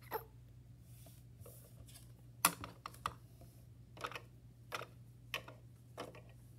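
Small plastic toys tapping and clicking against a hard tabletop as they are handled: a string of light, irregular clicks, stronger from a couple of seconds in, about one every half-second to second.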